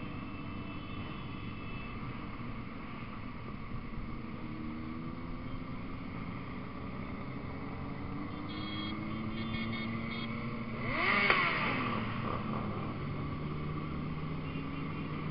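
Several motorcycles running in a group ride, their engines steady with slow shifts in pitch as they speed up and slow down. About eleven seconds in, one bike close by revs up loud for about a second, its pitch sweeping up and back down.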